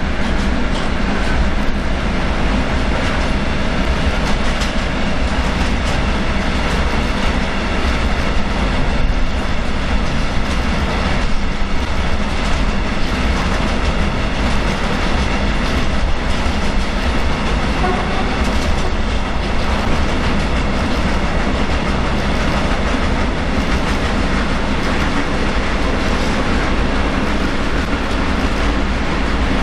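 Train on the tracks: a loud, steady running noise of wheels on rails, with a constant hum of several steady notes underneath.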